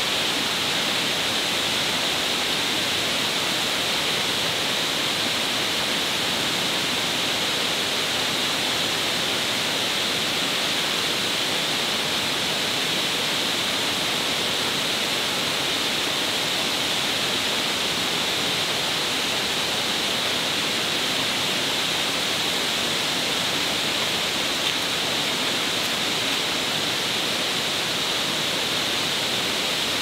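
Steady rush of water pouring over a low manmade waterfall, an even, unbroken hiss.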